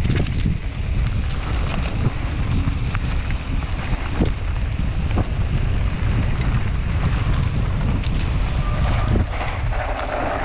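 Wind buffeting the microphone of a camera riding on a mountain bike, a loud steady rumble, with scattered sharp knocks and rattles from the bike on rough trail.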